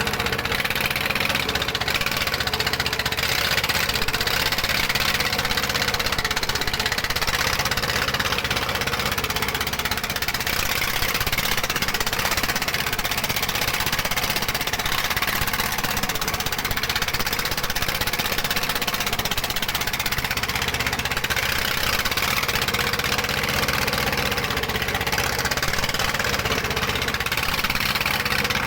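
Dongfeng-type "dompeng" diesel engine running steadily at a constant speed, with no change in pitch or level.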